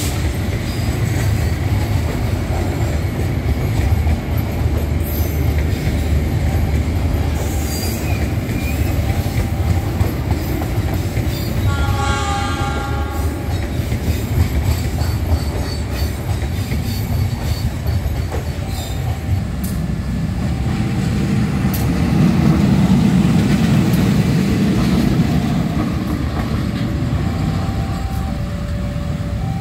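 Passenger train coaches passing close by, wheels rumbling and clacking over the rails, with a brief high-pitched squeal about halfway. Later a diesel locomotive's rumble swells as it approaches, and near the end a level-crossing alarm sounds in two alternating tones.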